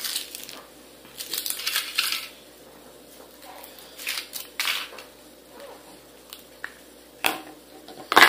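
Kinder Surprise chocolate egg being opened by hand: short bouts of rustling foil and cracking chocolate shell, then two sharp knocks near the end, the second the loudest, as the plastic capsule and the chocolate pieces are put down.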